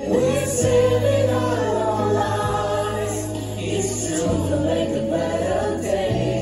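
A group of singers performing together through stage speakers, several voices holding long notes over a steady low bass line.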